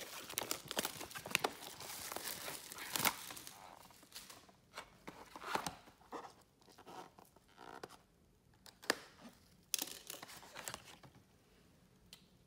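Cellophane shrink wrap being torn and crumpled off a trading-card hobby box, crackling densely for the first few seconds, then scattered crinkles and clicks that thin out toward the end.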